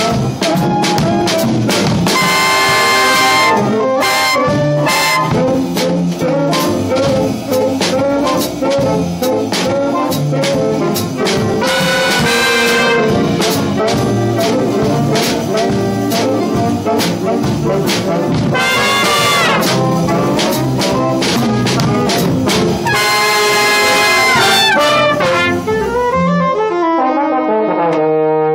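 Jazzy music led by brass instruments over a steady beat, with brighter loud passages every several seconds, thinning out near the end.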